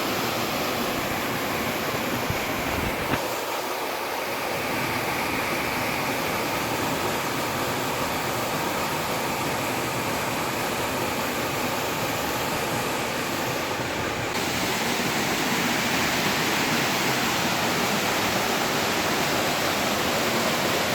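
Waterfall: a steady rush of falling water, a little louder in the second half.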